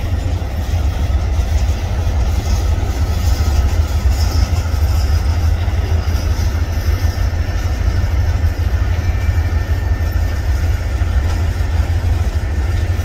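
Two diesel locomotives pulling a freight train slowly past, their engines making a steady low rumble.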